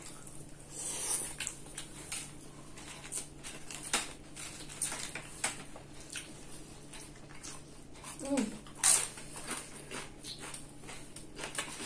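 Close-miked eating sounds: chewing, wet lip smacks and fork clicks on the bowls, with a sharp crunch about nine seconds in as a crunchy salted tortilla chip dipped in guacamole is bitten.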